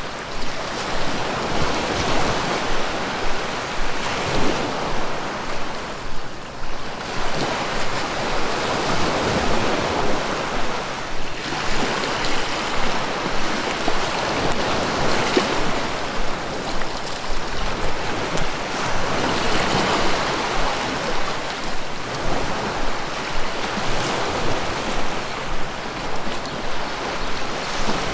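Ocean surf rolling onto a beach: a continuous wash of breaking waves that swells and eases every few seconds.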